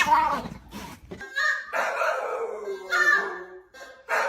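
A dog howling in a series of drawn-out calls, each sliding down in pitch, after a short call right at the start.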